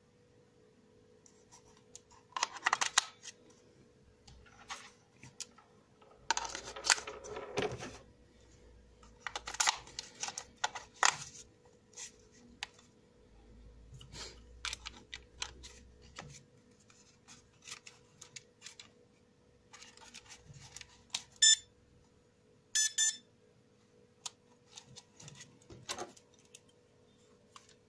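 Batteries and plastic being handled as AA cells are fitted into a small plastic drone remote controller: scattered clicks and rustles, with a few sharper clicks further on. A faint steady hum sits underneath.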